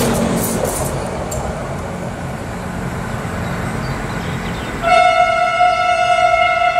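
Class 841 RegioSpider diesel railcar pulling away, its low engine rumble fading. About five seconds in, a train horn sounds one long steady blast.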